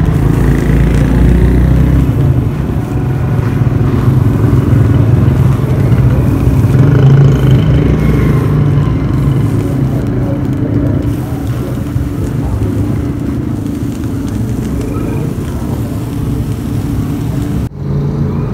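A water pump motor running steadily with an even hum, while water gushes from a pipe and splashes onto dirt and concrete.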